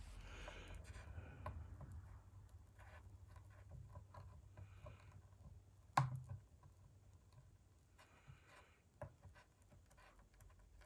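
Faint scratching as a hot iron works melted plastic fill rod into a plastic gas tank to seal a leak, with scattered light ticks and one sharp tap about six seconds in.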